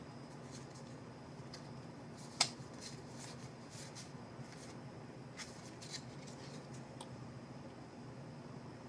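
Trading cards handled by hand as a pack is sorted through: faint scattered soft clicks of card stock, with one sharper tap about two and a half seconds in.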